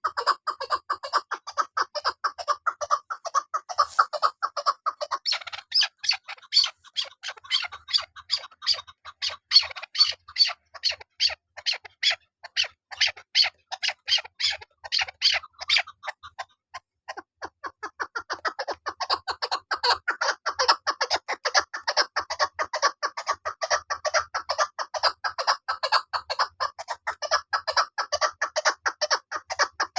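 Female chukar partridge calling in a fast run of short, repeated clucking notes, several a second. The calling pauses briefly a little past halfway, then carries on.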